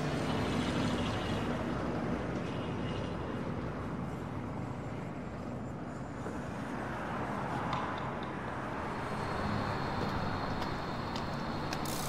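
Street ambience: a steady wash of road traffic noise with a low rumble.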